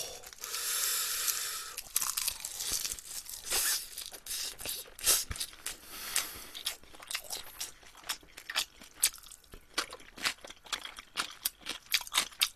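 Close-miked chewing of a bite of rice and marinated shrimp wrapped in two sheets of roasted laver. For the first two seconds there is a crisp tearing crunch as the laver is bitten through. After that comes steady chewing with many small wet clicks and crunches.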